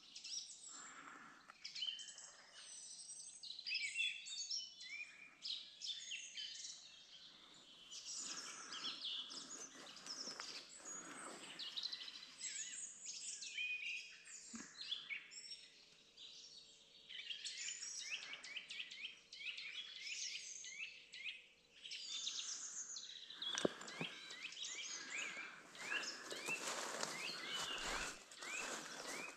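Several songbirds singing and calling: many short chirps and trills overlapping, thickest near the end.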